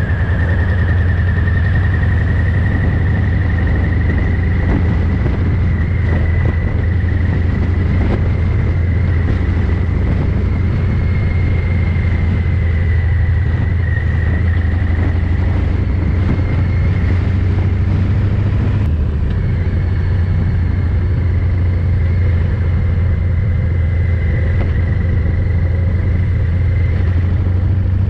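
Harley-Davidson Fat Boy 114's Milwaukee-Eight V-twin running through a Vance & Hines exhaust at a steady pace, a deep low drone with a thin high whistle above it. The recording is overdriven and distorted because the mic input gain was set far too high.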